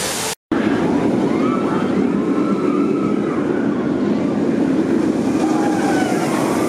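Steady low rumble of a steel roller coaster train running along its track, with faint wavering tones above it. It starts abruptly after a brief dropout about half a second in.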